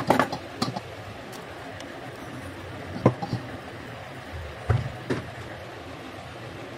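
Short, sharp knocks and clicks of a plastic LED bulb body, its diffuser dome and hand tools being handled and set down on a wooden tabletop: a cluster at the start, one about three seconds in and two more near five seconds, over a steady background hiss.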